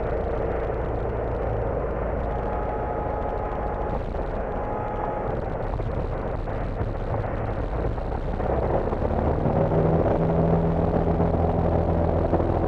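Cessna 172 floatplane's engine and propeller heard from inside the cabin, running with a steady hum, then growing louder about eight and a half seconds in.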